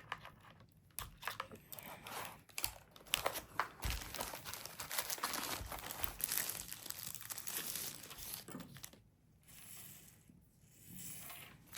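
Packaging being handled and unwrapped: irregular crinkling, rustling and tearing, which quietens for a moment about nine seconds in.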